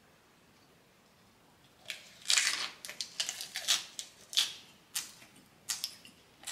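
Biting into a lettuce wrap of grilled pork belly and chewing it close to the microphone: crisp lettuce crunching, starting about two seconds in and going on at about two or three crunches a second.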